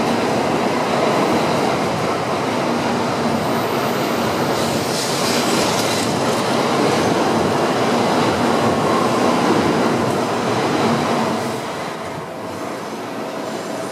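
Tokaido Shinkansen train running past along the station platform, a dense steady rail and running noise. The noise drops about twelve seconds in as the end of the train clears.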